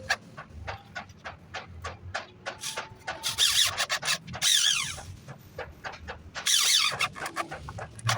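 Wood being worked with hand tools: a run of sharp taps and knocks, with three short, loud scraping strokes from about three seconds in.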